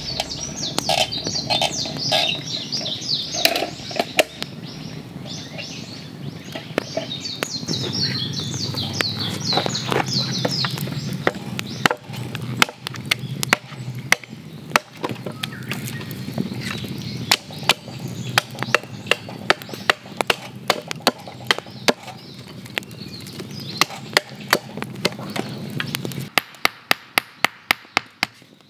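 Small birds chirping, with scattered knocks of wood being worked. Near the end comes a quick, even run of hatchet blows on a wooden stick, about three a second.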